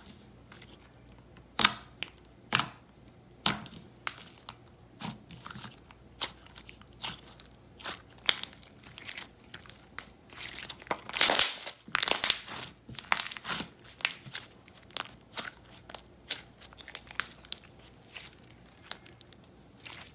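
Thick, glossy slime with large foam beads being squeezed and poked by hand: irregular crunching and crackling with sharp sticky pops, busiest about halfway through.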